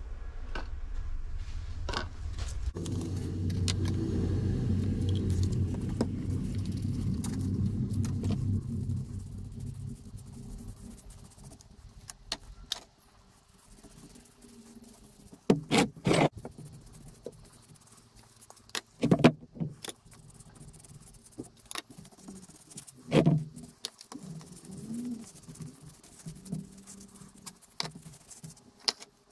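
A low engine rumble, like a passing vehicle, swells and fades over the first nine seconds or so. After it come scattered sharp clinks and knocks, four of them loudest between about 15 and 23 seconds in, from handling the stripper brush, bottle, glass dish and cast-iron vice parts.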